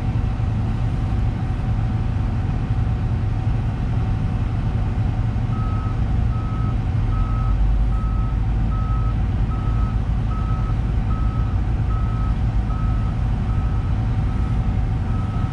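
Hitachi 350 long-reach excavator's diesel engine running steadily, heard from inside the cab. From about five seconds in, an electronic beep repeats at one pitch, about two and a half times a second.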